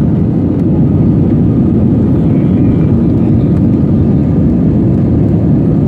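Steady airliner cabin noise: jet engine and airflow rumble heard through the cabin window, low and even, with a faint steady hum above it. The flaps are out, so the airliner is on approach.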